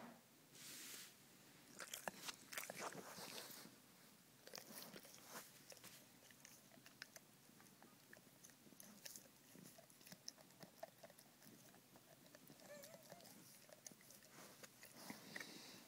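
Pit bull chewing at the claws of its own front paw: faint, irregular clicks and crunches of teeth on nails.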